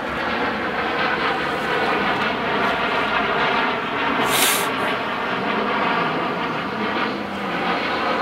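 An airplane passing over, its engine a steady drone with a pitched hum. A brief hiss comes about halfway through.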